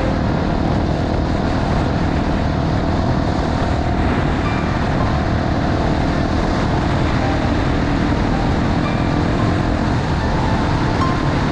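Honda XR250 Tornado's single-cylinder engine running at a steady speed on a gravel road, buried in a dense rush of wind and tyre-on-gravel noise.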